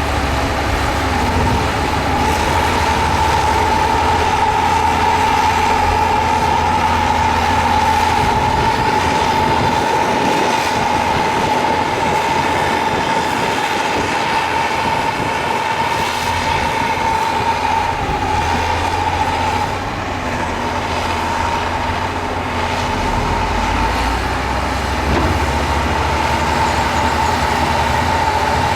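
Heavy diesel earthmoving machinery running under load, with a steady high-pitched whine over the low engine rumble.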